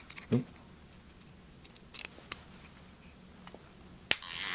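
A few small, sharp clicks of a hex wrench working the tiny set screw on a wind monitor's shaft magnet, spaced irregularly, with a louder click about four seconds in followed by a brief rustle.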